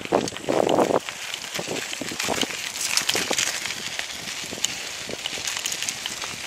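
Bicycle ridden over a rough trail of dry, burned debris: crackling tyre noise and many small rattling clicks, with wind on the microphone. A louder scraping rush comes in the first second.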